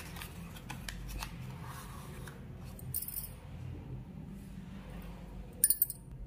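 A metal spoon clinking against a glass bowl as custard powder is spooned into milk, with a quick cluster of sharp clinks near the end, over a low steady hum.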